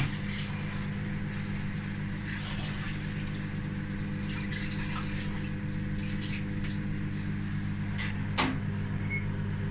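Microwave oven running with a steady, even hum. A single knock comes about eight seconds in, and two short high beeps near the end.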